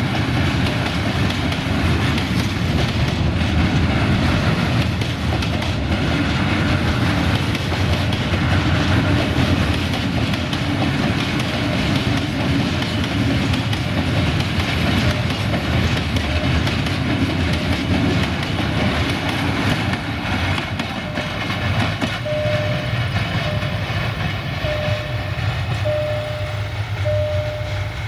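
Freight train of white bulk-powder hopper wagons rolling past close by, a steady rumble with the wheels clattering over the rail joints. About three quarters of the way through the rumble eases and a short repeated beep comes in, roughly once a second.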